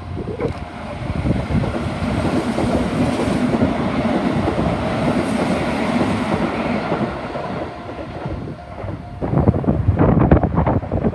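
Sanyo Electric Railway 5030 series electric train passing over a level crossing, a steady rumble of running wheels on rail. Near the end the wheels clack loudly over the rail joints several times, and the sound cuts off suddenly.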